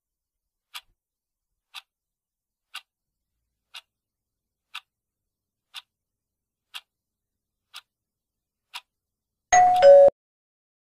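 Countdown timer sound effect: a clock ticking about once a second, then near the end a short, louder two-note tone, falling in pitch, as time runs out.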